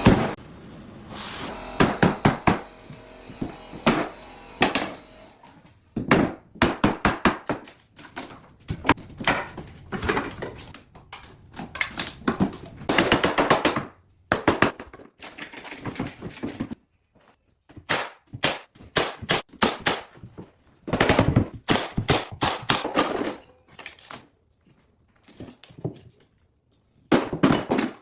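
Knocking and tapping on wood while a newel post is installed, in quick runs of several sharp strikes with short pauses between.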